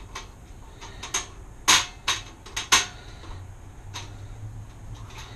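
Small sharp metal clicks and clinks as the mechanical interlock plate and its fastening hardware are handled against the metal panel cover, about seven separate taps with the loudest two near the middle.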